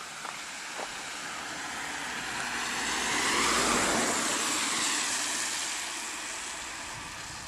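A car driving past on a narrow asphalt road, its engine and tyre noise growing louder as it approaches, passing close about four seconds in, then fading as it drives away.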